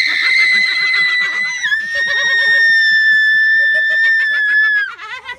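One long, very high-pitched human scream held steadily for about five seconds, dropping slightly in pitch part-way through and cutting off near the end, with fainter laughter underneath.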